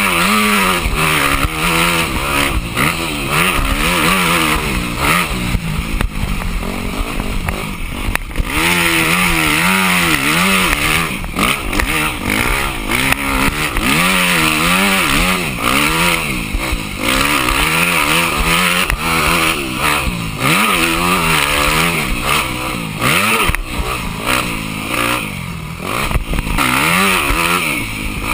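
Yamaha motocross dirt bike engine revving hard and then easing off, over and over, its pitch climbing and falling every second or two as the rider works the throttle and gears around the track. There are brief drops about eight seconds in and again about twenty-three seconds in.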